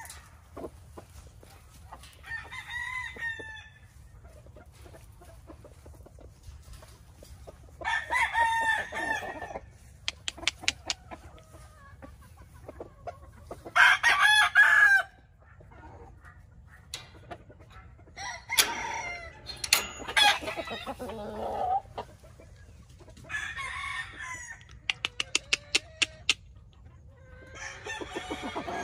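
Young gamefowl roosters (stags) crowing again and again, about seven crows spread out, some faint and some close, with the loudest about halfway. Twice there is a quick run of sharp clicks.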